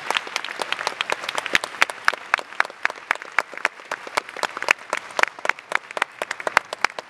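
Audience applauding, with one person's louder claps close by standing out at about three or four a second.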